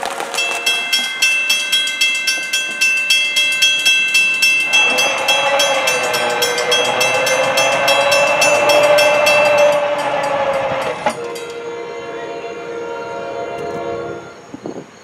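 Grade-crossing warning bell ringing about three times a second as an NJ Transit train approaches. About five seconds in, the train's horn sounds one long blast of about six seconds, its chord wavering slightly in pitch.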